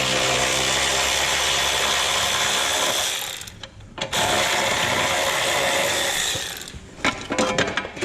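Cordless power tool, an electric ratchet or impact driver, backing out the engine side-cover bolts. It runs twice: one long run that stops about 3 seconds in, then a second of about two and a half seconds. A few small clicks of handling follow near the end.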